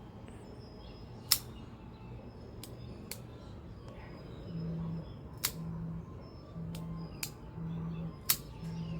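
Trivisa Dolphin liner-lock folding knife being worked open and shut: a handful of sharp, irregularly spaced clicks of the blade and liner lock, the loudest about a second in. From about halfway a low hum pulses on and off about once a second behind them.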